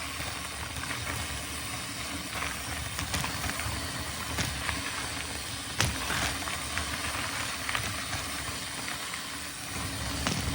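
Mountain bike being ridden over a muddy woodland trail: a steady rumble and hiss of tyres and bike rattle, with a few sharp knocks, the loudest about six seconds in.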